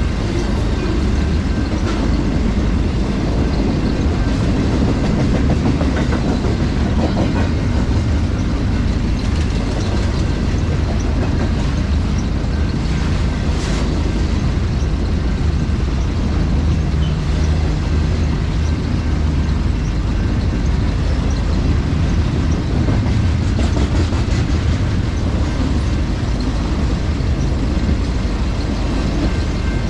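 Intermodal freight cars carrying double-stacked containers and trailers rolling steadily past: a continuous low rumble of steel wheels on the rails, with rattling and faint clicks.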